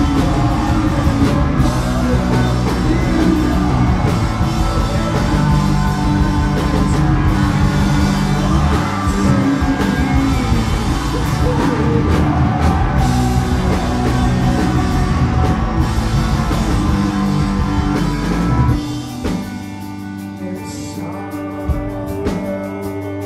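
Live rock band playing loud, with electric guitars, bass, drum kit and sung vocals. About nineteen seconds in, the full band drops away, leaving quieter guitar ringing on.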